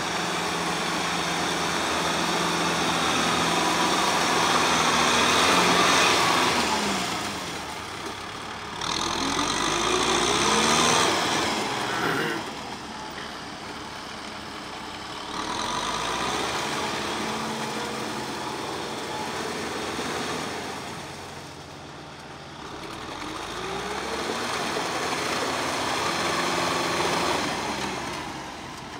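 Kubota tractor's diesel engine running under load as it drives a rear rotary tiller through wet paddy mud, growing louder and fading several times as it passes back and forth.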